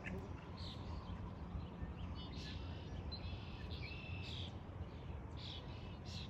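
Birds chirping and calling in short, repeated notes over a low, steady rumble.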